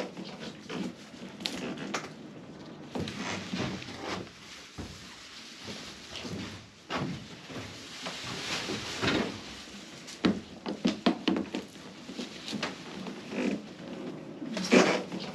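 Irregular wooden knocks, taps and clatter with handling noise, in a small enclosed room, from timber cladding strips being handled and fitted to a boat's saloon ceiling.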